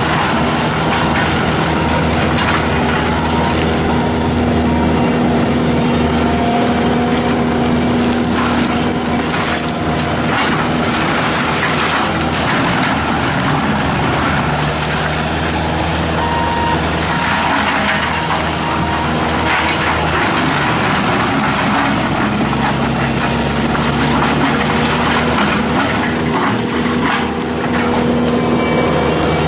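Bobcat T770 tracked skid steer's diesel engine running under load with its forestry mulcher head spinning: a steady, loud machine drone mixed with a dense rushing noise and irregular knocks and crackles.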